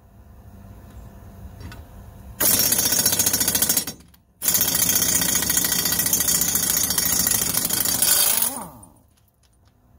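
Impact wrench hammering on an exhaust manifold stud in two bursts: a short run about two and a half seconds in, a brief pause, then a longer run of about four seconds that winds down with a falling whine.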